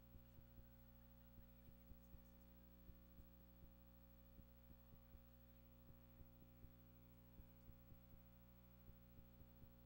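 Near silence: a faint steady electrical hum with irregular soft low clicks, typical of a tape transfer with no recorded sound.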